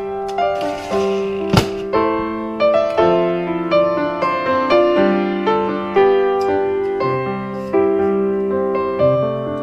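Background piano music, a melody of struck notes that ring and fade. A brief hiss and a sharp click sound about a second in.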